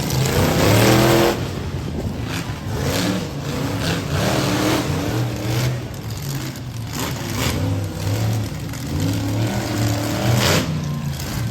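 Monster truck engine running and revving in repeated bursts, the pitch climbing and dropping with each blip of the throttle, loudest in a hard rev during the first second or so.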